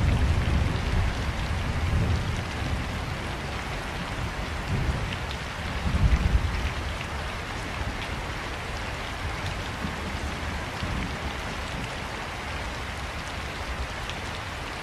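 Heavy rain falling steadily on a city street, a continuous hiss, with low rumbles about two seconds in and again, loudest, around six seconds in.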